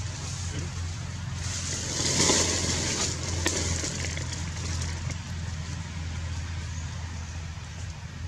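Steady outdoor background noise: a low rumble under an even hiss, swelling briefly about two seconds in, with a few faint clicks.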